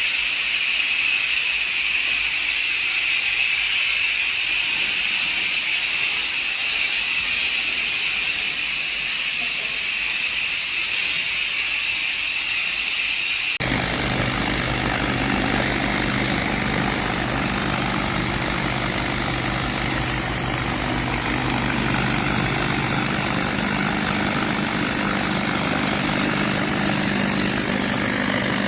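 Pressure washer at work: high-pressure water spray hissing steadily, then, after an abrupt change about fourteen seconds in, a steady running engine with a low hum.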